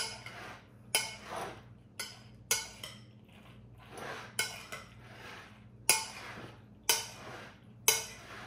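Spoon knocking and scraping against a ceramic mixing bowl while stirring dressing through macaroni salad: a sharp clack about once a second, with a soft mixing sound between.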